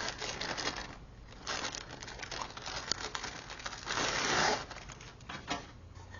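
Packaging crinkling and rustling as a microphone is lifted out of its box, with small handling clicks and a longer, louder crinkle about four seconds in.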